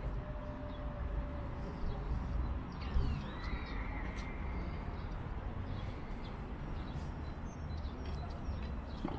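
Outdoor city ambience: a steady low rumble, with faint bird chirps now and then.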